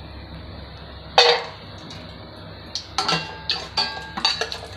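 Steel ladle knocking and scraping against a stainless steel pot while cashews are stirred in hot ghee: one sharp clink about a second in, then a quick run of ringing metal clinks from about three seconds in.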